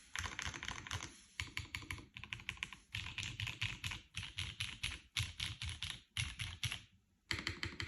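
Geon F2 mechanical keyboard with SP-Star DMG switches on an aluminium half plate, typed on in fast runs of keystrokes broken by short pauses, the longest about seven seconds in.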